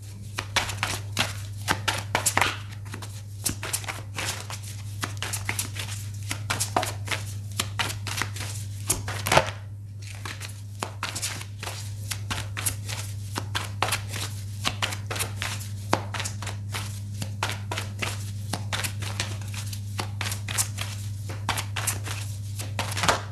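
A tarot deck being shuffled by hand: a long run of quick card clicks and flicks, with a louder snap about nine seconds in, over a steady low hum.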